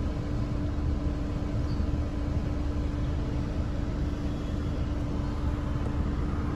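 2012 Chevy Cruze idling with the heater fan running, a steady hum over a low rumble, while the cooling system is bled of air after a water pump replacement.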